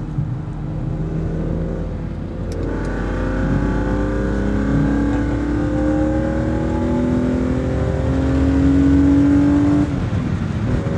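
BMW Z4 M Coupé's naturally aspirated 3.2-litre straight-six with an Eventuri intake, heard from inside the cabin under hard acceleration. After a couple of seconds of steadier running, the engine note climbs steadily in pitch and grows louder, then drops suddenly near the end.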